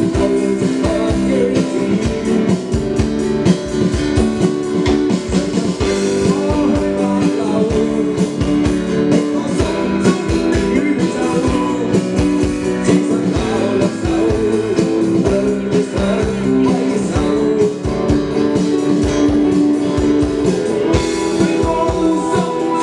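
Live rock band playing a song through a PA: strummed acoustic guitar, electric guitar, drum kit and keyboard, with a lead voice singing over a steady beat.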